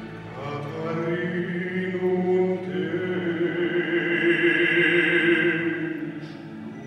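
Male operatic baritone voice singing, holding one long note through the middle, over a steady low accompaniment; the voice fades away near the end.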